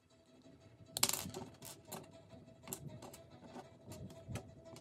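Hobby nippers snipping small plastic parts off a model-kit runner: a sharp click about a second in, then lighter scattered plastic clicks and taps as the cut pieces are handled and set down on the desk.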